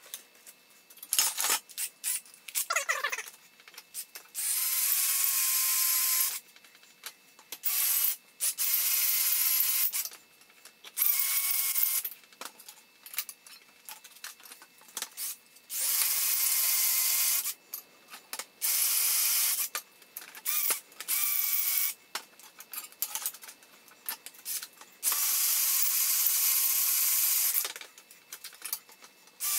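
Cordless drill boring into steel in repeated runs of about one to two seconds, each with a steady motor whine, with short knocks and clanks of metal parts between runs: the old casters being drilled out of the stand's steel flat-bar base.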